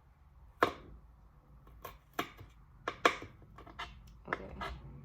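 A kitchen knife chopping scallions on a cutting board: about eight sharp, unevenly spaced strokes.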